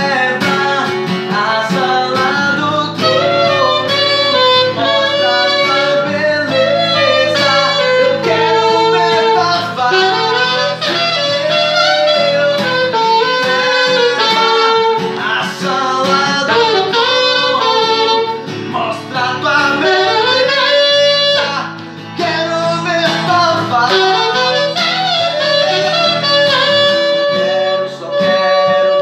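A man singing a Portuguese gospel song to his own strummed acoustic guitar, with an alto saxophone playing along.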